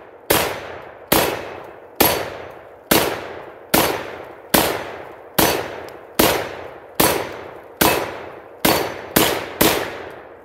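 Black Aces Tactical Pro Series semi-automatic bullpup shotgun firing a string of thirteen shots from a 20-round drum magazine, about one a second, quickening to rapid fire near the end.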